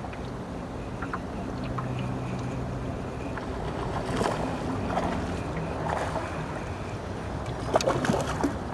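Electric trolling motor humming steadily, with wind on the microphone and a few brief sharp sounds around the middle and near the end.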